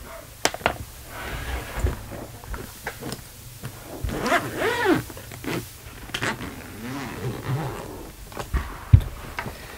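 Suitcase coil zipper being drawn open around the main compartment in several scratchy pulls, the pitch rising and falling with each pull, with a few clicks and a sharp knock near the end.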